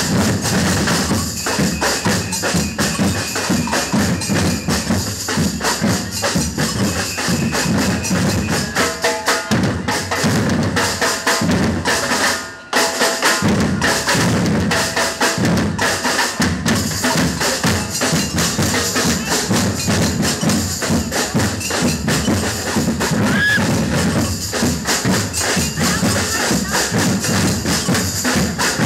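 Street drum band playing together on many large bass drums and snare drums, with a short drop in the playing about halfway through before it comes back in.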